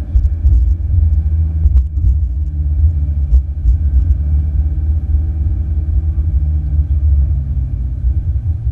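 Ferrari 488 GTB's twin-turbo V8 running at a steady cruise, with a heavy low rumble of engine and road and a steady engine note that drifts slowly in pitch. A few faint clicks are heard, about two and three seconds in.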